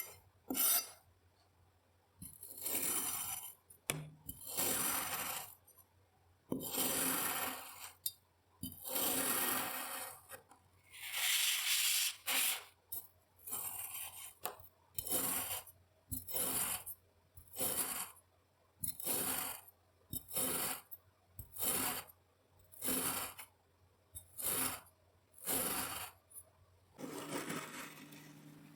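Kinetic sand being cut and crushed: a run of short scraping strokes, spaced a second or two apart at first, then coming evenly a little more than once a second in the second half.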